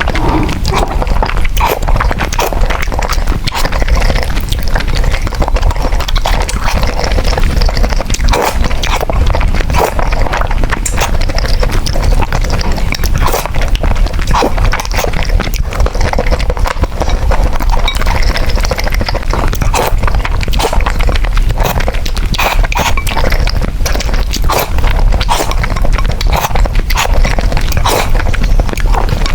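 Close-miked slurping and chewing of noodles: a dense, unbroken run of wet smacks and clicks.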